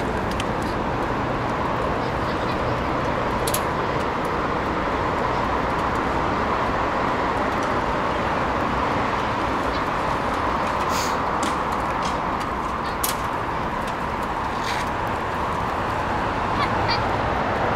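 Steady rush of wind and tyre noise from a moving bicycle, with a few sharp clicks and rattles along the way.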